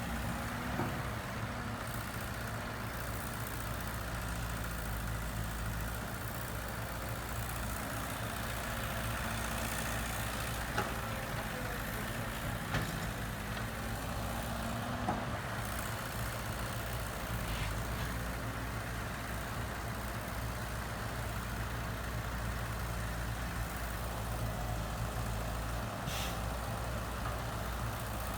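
Heavy-equipment diesel engine running steadily at a low, even pitch, with a few light knocks now and then.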